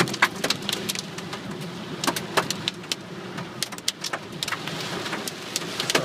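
Hailstones striking a car's roof and windshield in irregular sharp ticks and knocks, over the steady hum of the moving car.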